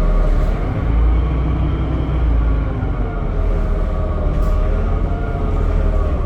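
Temsa Avenue LF 12 city bus's DAF diesel engine and ZF automatic gearbox under way: a steady low rumble with a whine of several tones above it that shift slightly in pitch as the revs change.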